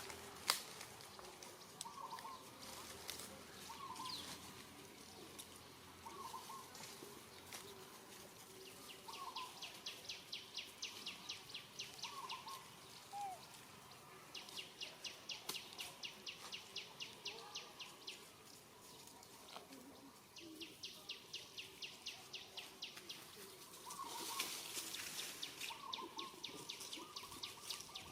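Faint outdoor wildlife sounds: short chirps every couple of seconds, and three runs of a fast, high pulsing trill lasting a few seconds each, like a bird or insect.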